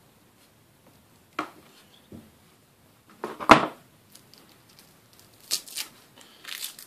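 Small side cutters snipping wire at the end of a shielded cable, a sharp click about one and a half seconds in. A louder clack follows about two seconds later, as the cutters go down on the wooden bench, then light rustling and ticking as the cable end is handled.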